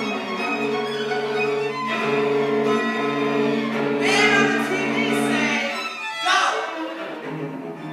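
String quartet of two violins, viola and cello playing: the lower strings hold long sustained chords while the violins play higher, wavering lines that come in about halfway through and again near the end.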